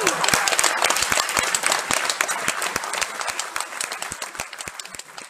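Audience of schoolchildren applauding, dense clapping that thins out and fades over about five seconds. At the very start the last falling note of a group's loud shout dies away under it.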